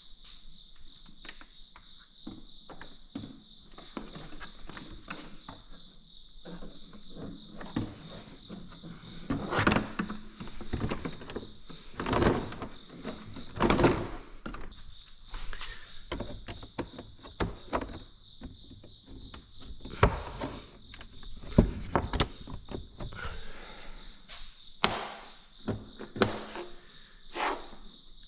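Irregular knocks, clunks and clicks of hand work with tools and parts, a few of them much louder than the rest, over a steady high insect trill.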